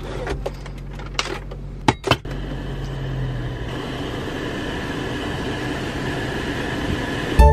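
Inside a car's cabin: a few sharp clicks and taps, then from about two seconds in a steady hum of the running car and its ventilation fan.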